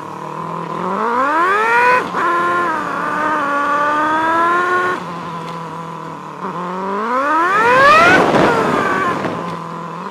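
Sport motorcycle engine heard from the rider's seat, pulling hard with the revs climbing steeply, a sharp break about two seconds in, then held at speed before dropping back. It winds up steeply again to its loudest point with rushing wind about eight seconds in, then eases off.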